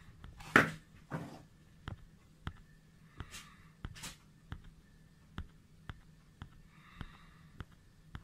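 Handling noise as a zoom eyepiece is turned in the hand. A short rustle about half a second in is the loudest sound, with softer rustles after it. Under these runs a series of faint, evenly spaced ticks, about one every two-thirds of a second.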